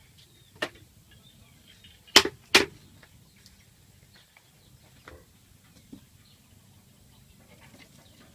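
Three sharp knocks: one, then a louder pair close together about two seconds in, followed by a couple of faint clicks.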